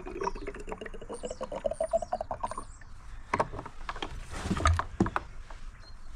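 Liquid pouring from a Stihl canister into a container, with a gurgle whose pitch rises steadily as the container fills, then cuts off sharply about two and a half seconds in. Then a few plastic knocks as the can and its cap are handled.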